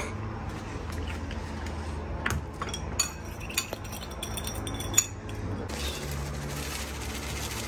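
A metal fork clinking against a ceramic bowl while a soy-and-sesame sauce is stirred: a handful of sharp clinks, the loudest about five seconds in, over a steady low hum.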